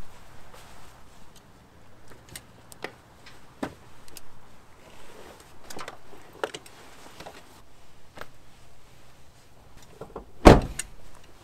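Scattered light clicks and knocks, then one loud thump about ten and a half seconds in.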